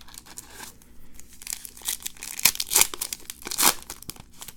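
Plastic trading-card pack wrapper being torn open and crinkled, with a few sharp crackles in the middle of the tear.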